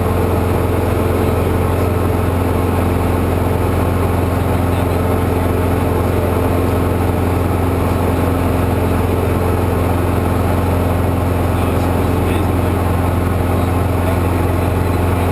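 Diamond DA40's four-cylinder Lycoming piston engine and propeller droning steadily in flight, heard from inside the cockpit, with a strong low hum under the engine noise.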